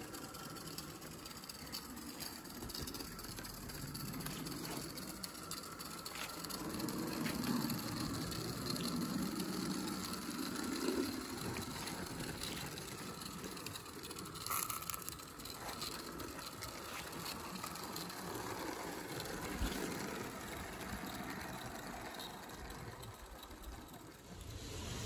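16mm-scale live-steam Wrightscale Alice class Hunslet quarry tank locomotive running with Penrhyn slate wagons, a steady mechanical clatter and clicking of its wheels, motion and wagons on the track, louder for a few seconds in the middle.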